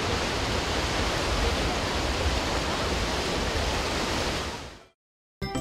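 Sea surf breaking and washing over a rocky shore, a steady rush of waves that fades out near the end. After a brief silence, music starts just before the end.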